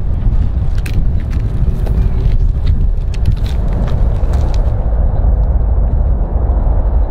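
Four-engined jet aircraft's engines running at high power on the runway, a loud, steady, deep rumble.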